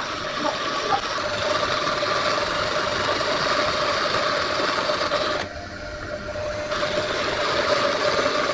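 Electric power tool running steadily with a constant whine, briefly quieter for about a second past the middle.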